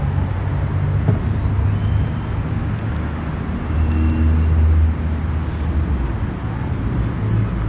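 Road traffic: a steady low engine rumble of passing vehicles, swelling for a moment about four seconds in.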